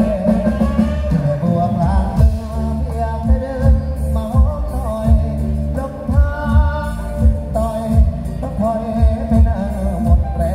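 A song with a singing voice played loud through large outdoor speaker cabinets, with heavy bass and a steady kick-drum beat.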